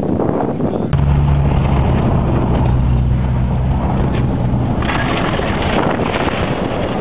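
1994 Mercury Cougar's engine running hard as the car slides on dirt, heard first from outside with wind on the microphone, then, after an abrupt cut about a second in, from inside the cabin as a steady low drone. A rushing noise of tyres and gravel grows louder about five seconds in.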